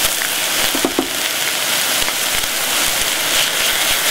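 Minced meat and diced vegetables frying in a pot with a steady sizzle and crackle: the sound of the meat starting to brown, the cue for adding the tomato paste. Tomato paste is scraped in with a wooden spoon, with two short squeaks about a second in.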